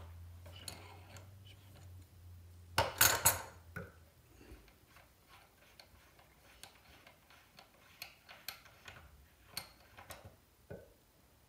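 Faint small clicks and ticks of a Delta faucet's cartridge retaining nut being unscrewed by hand, with one louder clatter about three seconds in.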